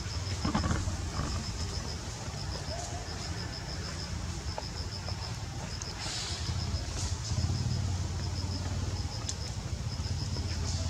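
Outdoor ambience: an insect chirping in short trains of rapid, high pulses that stop and start, over a steady low rumble.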